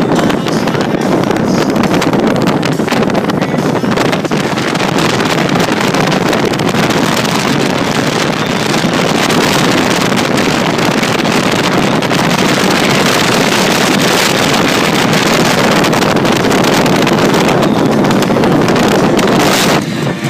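Heavy wind rush on the microphone over motorcycle engine and road noise, riding at speed beside a Harley-Davidson cruiser. It is loud and steady, then cuts off abruptly just before the end.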